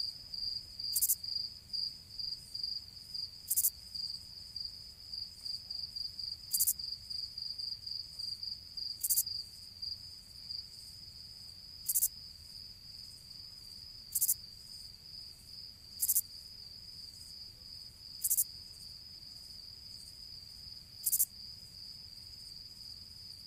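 Cricket chirping sound effect: a steady high trill with a sharper chirp every two to three seconds. It is the stock 'crickets' cue laid over an awkward silence.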